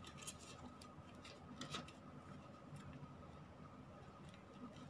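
Faint, irregular light ticks and soft rustles of paper being handled as a decorated paper envelope is slipped over a journal page.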